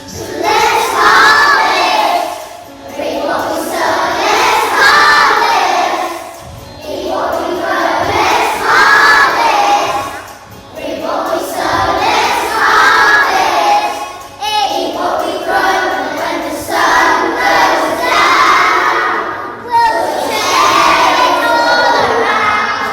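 A group of children singing loudly together, in phrases of a few seconds each with short breaks between them.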